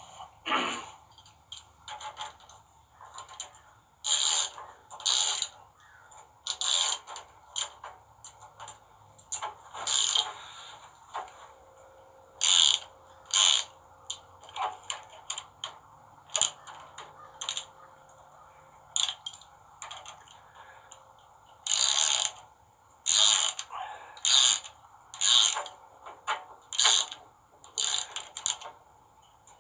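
Ratchet wrench clicking in short bursts with pauses between, tightening the nuts of wire rope clamps on a steel winch cable.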